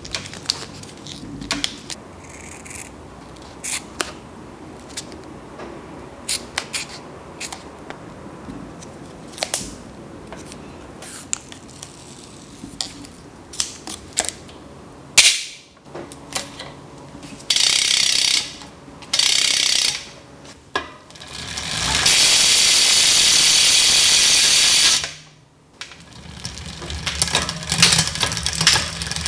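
Scattered clicks and light handling noises from bicycle parts, then several loud bursts of hiss. Near the end the chain and rear cassette of a road bicycle spin with a steady whir and ticking.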